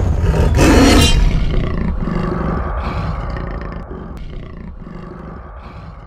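A big cat's roar, as a sound effect, about half a second in. After it a low rumble trails off and slowly fades away.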